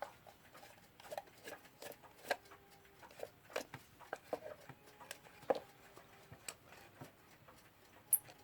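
Irregular light clicks and taps of a hand tool and small parts being handled while fittings are taken off a wooden Metamec mantel clock case, with a brief high squeak near the end.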